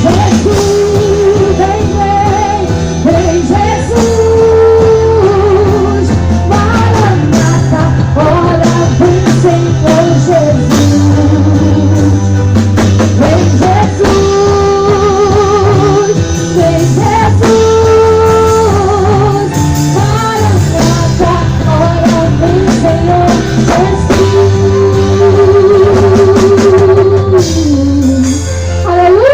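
Live gospel praise-band music with long, held vibrato notes sung over a steady bass line and band accompaniment.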